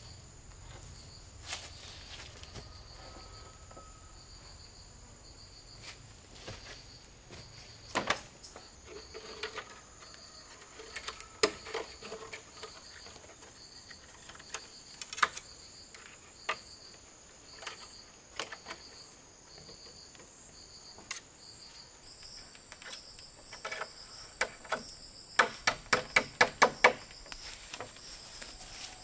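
A steady, high-pitched insect chorus of two unbroken trills, with scattered single knocks and clicks of bamboo being handled and fitted. Near the end comes a quick run of about nine sharp strikes, about six a second, the loudest sound.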